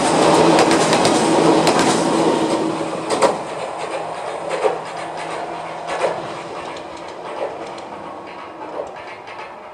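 Toyama Chihō Railway 14760-series electric train running past and moving away, its running noise fading steadily. After about three seconds there is a series of wheel clacks over the rail joints, about one every second and a half, each fainter than the last.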